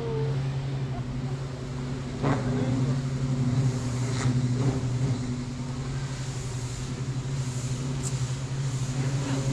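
A steady low mechanical hum, with a few short clicks about two and four seconds in.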